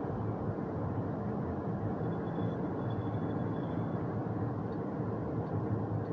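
Steady road and tyre noise with the engine's low hum heard from inside a car's cabin while driving at a constant speed.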